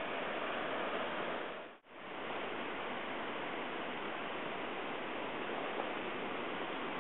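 Steady rushing of river water, dropping out for a moment a little under two seconds in.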